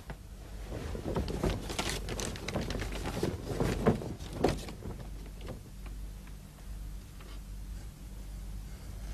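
Footsteps and cloth rustling of a group of people walking in: a run of irregular soft knocks and shuffles that thins out about halfway through.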